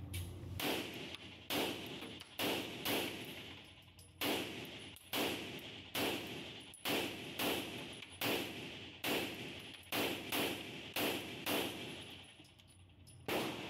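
Beretta 92S pistol fitted with a two-port muzzle compensator firing a string of roughly fifteen shots at about one a second, each shot echoing in an indoor range, with a brief pause near the end before a final shot.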